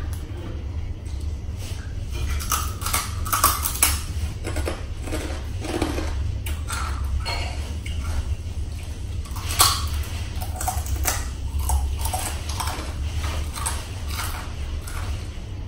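Spoon and fork clinking and scraping against a plate while eating: an irregular scatter of taps and clicks.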